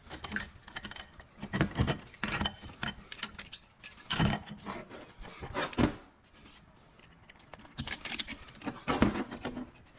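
Clutch plates from a 48RE automatic transmission's clutch drums clinking and clattering as they are pulled out and handled. The sharp metallic clicks come in irregular bursts, with a lull of a second or two after the middle.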